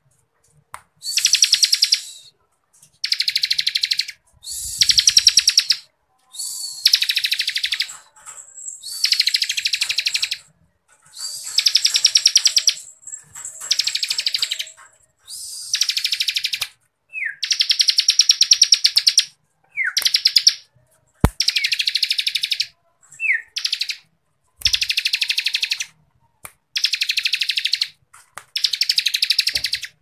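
Bar-winged prinia (ciblek kristal) singing its fast, dense rattling 'ngebren' song in repeated bursts of about a second each, with short gaps between them. A few short rising notes come between bursts in the middle.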